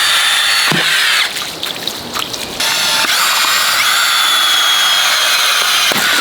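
A small electric motor running with a high whine. It falters and sputters for about a second and a half, then starts up again with a rising pitch and runs steadily.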